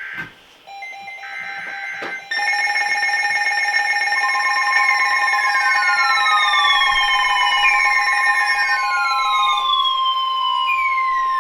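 Emergency Alert System tones. First come short bursts of the SAME digital header, then about two seconds in a loud alert signal starts: several steady tones at once, with repeated falling sweeps. It is the attention signal that comes just before a National Weather Service flash flood warning.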